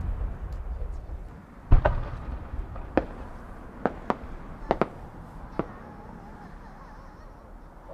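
Fireworks display: the low rumble of an aerial shell's burst dies away, a dull thump comes about two seconds in as the next shell is launched, then several sharp, separate pops and cracks follow while the shell climbs.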